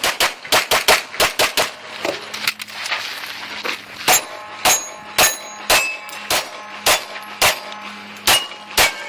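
Pistol fired in fast strings during a competition stage: shots come about five a second for the first two seconds, then roughly every half second, with steel targets ringing after many of the later shots.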